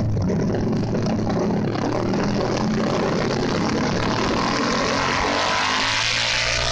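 Motorcycle engine running under way with heavy wind rush on a helmet-mounted camera; the wind noise grows stronger in the second half and the engine note rises near the end as the bike picks up speed on open road.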